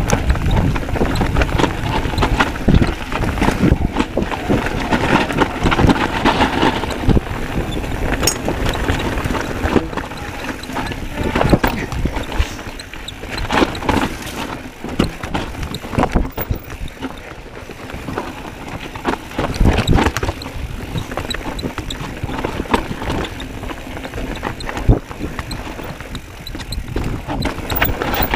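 Mountain bike riding down a bumpy dirt singletrack: constant clatter and rattling as it bounces over the ground, with tyre noise on dirt.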